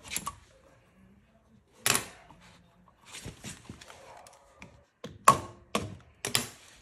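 A handful of sharp metallic clacks and knocks from a flex-head ratchet and socket being handled on a lug nut, spaced irregularly and loudest about five seconds in, with some softer rustling between them.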